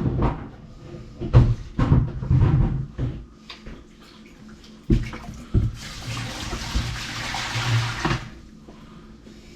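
Several clunks and knocks, then a kitchen faucet runs water into the sink for about two seconds and shuts off abruptly, water sent down the freshly snaked drain.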